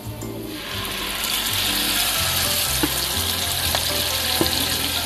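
Mashed boiled aubergine sizzling in hot oil in a frying pan, the sizzle swelling up about half a second to a second in and then holding steady. A wooden spatula scrapes and knocks in the pan now and then as the mash is stirred.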